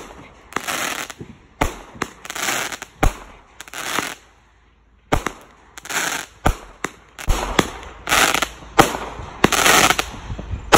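Consumer aerial fireworks going off in a rapid string: sharp bangs about one to two a second, each followed by a short crackling hiss, with about a second of silence about four seconds in.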